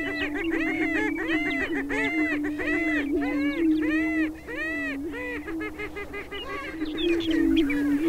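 Greater prairie chickens displaying on a lek: males booming in a continuous low hum, overlaid by repeated arching calls about twice a second that come quicker and then crowd together near the end.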